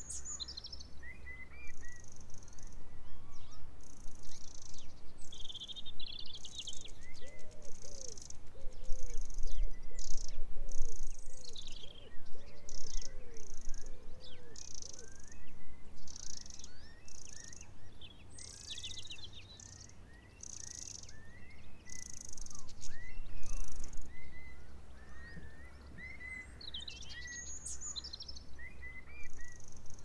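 Outdoor ambience of small wild birds chirping and singing with many short high notes, over a low wind rumble on the microphone. A run of lower, arching calls comes in the middle.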